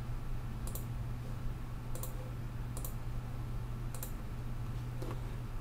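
Computer mouse clicking four times, short sharp clicks a second or so apart, over a steady low hum.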